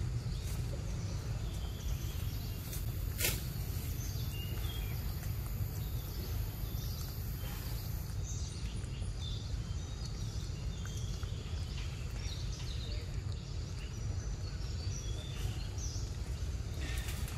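Forest ambience: small birds chirping now and then over a steady low rumble, with one sharp click about three seconds in and a thin high hiss through the first half.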